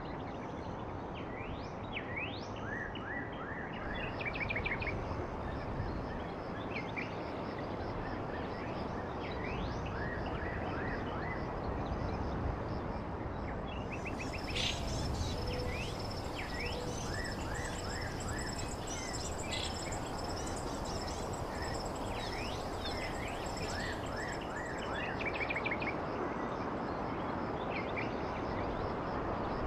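Steady outdoor background noise with many short, high, falling bird chirps scattered throughout. Midway a steady high buzz joins for about ten seconds.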